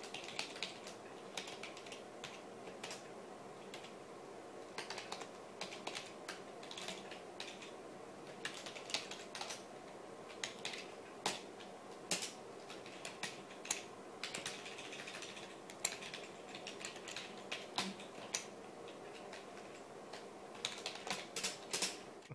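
Typing on a computer keyboard: irregular key clicks in quick runs with short pauses, busiest near the end.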